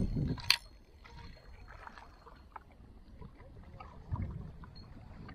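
Gentle sea water lapping against shoreline rocks, with one sharp click about half a second in and a low rumble about four seconds in.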